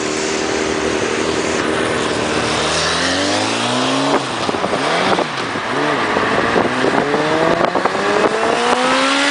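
Engines accelerating hard from a junction: a Suzuki GSX-R1100 oil-cooled four-cylinder motorcycle and the following car. A steady engine note for about three seconds, then the pitch climbs repeatedly, dropping back at each gear change.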